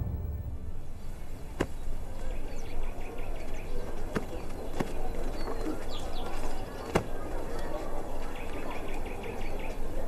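Outdoor ambience: a steady hubbub with two short runs of rapid high chirping and a few sharp knocks scattered through it.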